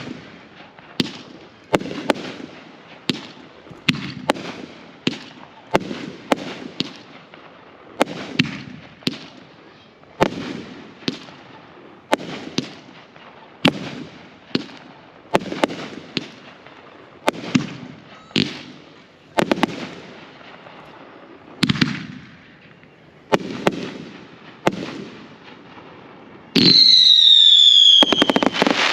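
Fireworks display: sharp booms of aerial fireworks bursting about once a second, each trailing off in an echo. Near the end a louder, denser barrage sets in, with high whistles falling in pitch.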